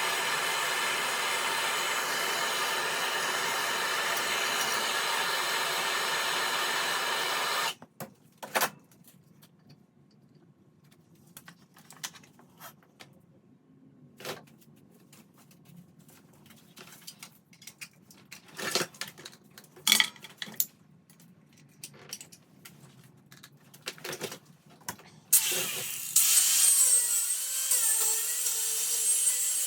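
Metalworking on a steel round bar: a tool runs steadily for about eight seconds and cuts off suddenly, followed by scattered sharp metal clanks and knocks, then a tool runs again from about twenty-five seconds in with its pitch wavering.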